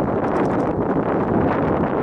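Steady wind noise rushing over the microphone of a camera moving along with a cyclist.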